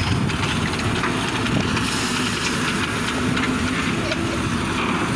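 Heavy diesel engine of a wrecker tow truck running steadily during a winching job, with a constant hiss over its low rumble.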